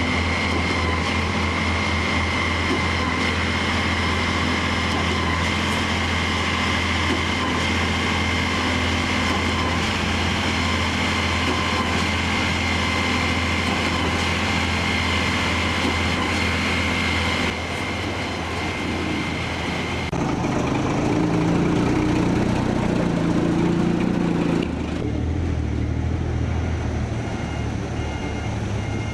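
A large engine running steadily with a high whine. The whine stops about two-thirds of the way through, and the engine note shifts a few times.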